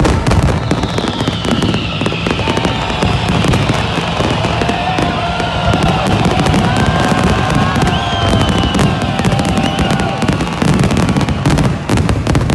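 Large aerial fireworks display: a continuous barrage of rapid bangs and crackling shells, with a few long gliding tones over the din, ending fairly suddenly at the end.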